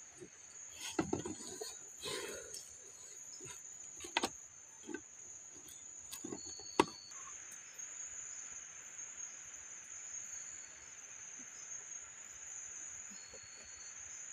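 Insects buzzing steadily with a high whine, joined by a second, lower insect chorus about seven seconds in. A few knocks and one sharp click come from handling the stopped chainsaw and its fuel jug, the click being the loudest sound.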